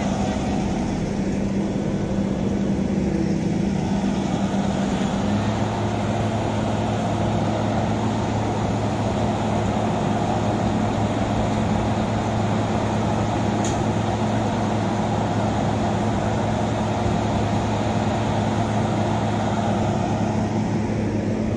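Diesel engine of a Vögele asphalt paver running steadily under paving work. A lower hum joins it about five seconds in.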